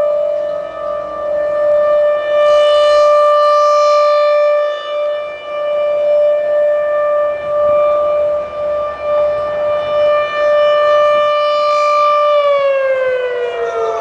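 Federal Signal Thunderbolt tornado siren sounding a steady tone for its monthly test, its loudness swelling and dipping as it rotates. About twelve seconds in, the pitch begins to fall as the siren winds down.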